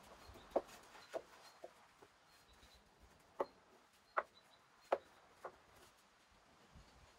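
A paintbrush tapping and knocking against the boards of a scorched wooden panel as finish is brushed into its joints: about seven short, light wooden knocks at irregular intervals.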